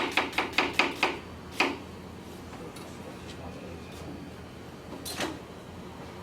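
Knife slicing an onion on a cutting board: quick, even chops, about five a second, through the first second. One more chop follows half a second later, then a single knock about five seconds in.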